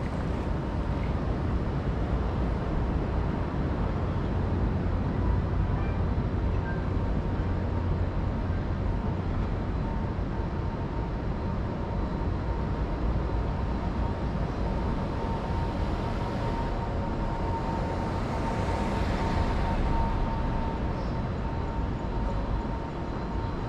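Steady outdoor urban background noise: a low rumble, with a faint steady high tone through the middle stretch and a slight swell near the end.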